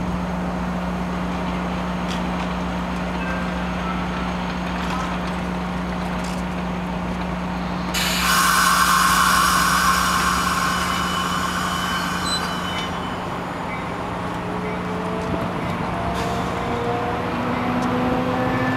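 Caltrain bi-level commuter train at the platform with a steady low hum. About eight seconds in comes a loud hiss of air brakes releasing, lasting about five seconds. Near the end, rising tones are heard as the train starts to pull away.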